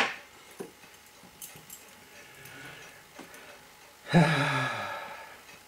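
A few faint small metal clicks from tweezers and tiny screws being worked into a watch movement. About four seconds in, a man lets out a long voiced sigh that falls slightly in pitch; it is the loudest sound.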